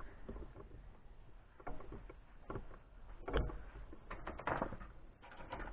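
A few scattered knocks and clatters from things being handled, the loudest about three and a half seconds in.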